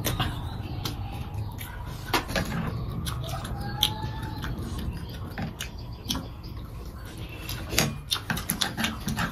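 Eating sounds: irregular light clicks and taps of chopsticks and a fork against a serving tray, with chewing, over a low steady hum. The clicks come most thickly near the end.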